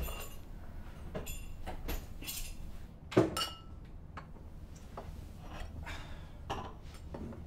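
Glassware being handled on a kitchen counter: a series of light knocks and clinks, the loudest a ringing glass clink about three seconds in.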